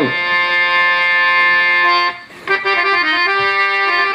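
Harmonium playing: a chord held steady for about two seconds, a brief break, then a melody stepping from note to note over a held drone.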